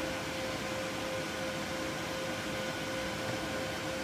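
Steady fan-like machine hum with a constant mid-pitched tone running through it.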